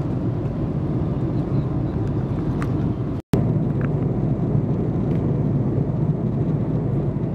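Steady low drone of an airliner cabin in cruising flight, from engine and airflow noise. It drops out for an instant about three seconds in, where the recording cuts.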